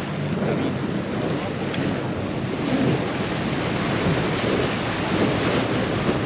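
Small open boat underway on choppy sea: steady wind buffeting the microphone over the hum of its motor and water rushing against the hull.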